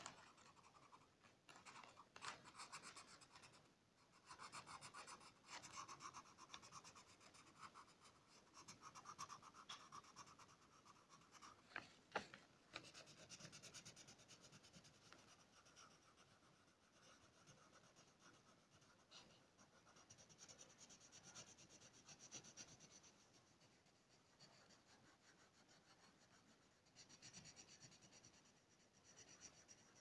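Faint scratching of a coloured pencil shading on paper, in runs of quick back-and-forth strokes, with one sharp tick partway through.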